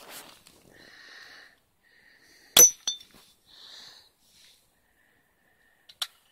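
A pump pellet gun fires with a sharp crack about two and a half seconds in, and the pellet strikes a small glass bottle with a ringing clink, knocking it over without breaking it. A smaller click follows right after, and another near the end.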